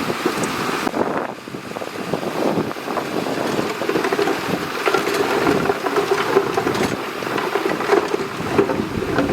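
Shantui DH17C2 bulldozer's diesel engine running steadily, with a brief dip in level about a second in.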